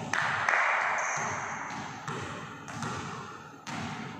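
Basketball bounces on a hardwood gym floor, a few separate thuds each trailed by the echo of a large hall. A louder rushing burst near the start dies away over about a second, and a brief high squeak follows.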